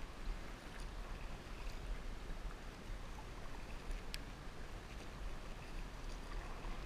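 Kayak paddle strokes in river water, with a steady wash of water noise and a low, buffeting rumble of wind on the microphone. A single sharp click about four seconds in.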